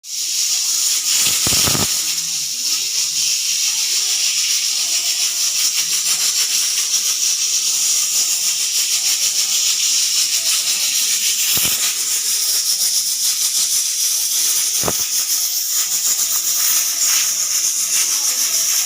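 Pressure cooker whistle letting off steam: a steady loud hiss with a fast rattling flutter, broken by a few brief knocks.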